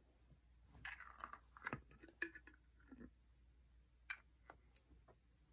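Near silence with faint scattered clicks and scrapes of hands straining to twist the cap off a glass drink bottle that won't open.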